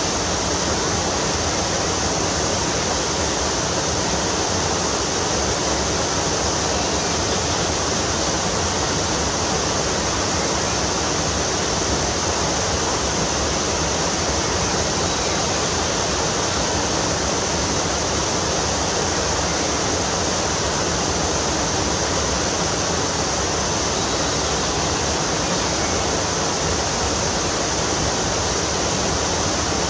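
Steady rush of fast-flowing stream water, unbroken and even.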